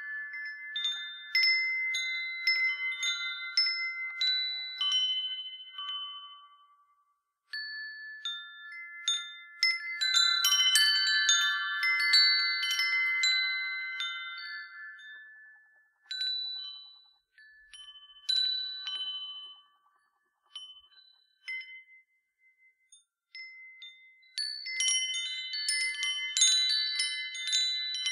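Copper-tube wind chime, its hammered tubes tuned to a Chinese pentatonic scale, struck by its swinging wooden striker: clear ringing tones that overlap and slowly fade. The strikes come in flurries with short quiet gaps, thinning out in the middle and growing busy again near the end.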